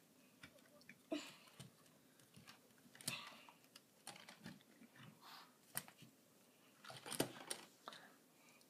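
LEGO plastic pieces being handled and fitted: scattered light clicks, taps and rustles as parts of the Fairground Mixer set are moved and snapped into place, with a sharper cluster of clicks about seven seconds in.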